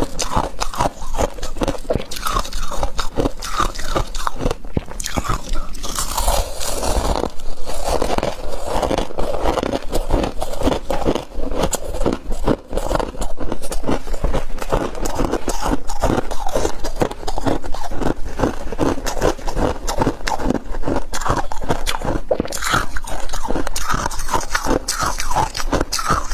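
Humidifier frost being bitten and chewed close to the microphone: a continuous run of squeaky crunches.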